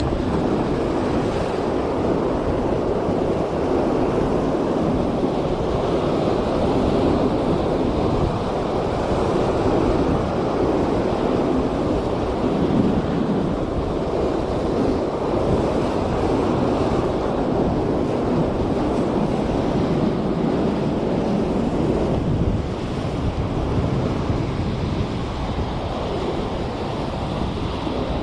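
Sea surf breaking and washing over the rocks close by, a steady rushing, with wind buffeting the microphone.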